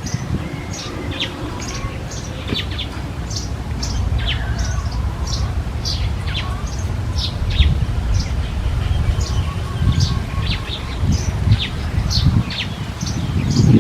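Small birds chirping: many short, high, quick downward chirps, several a second, over a low wind rumble.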